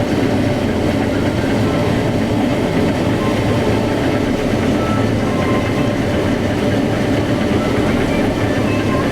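Tractor and bean-harvesting machinery running steadily, a constant engine drone that stays even throughout.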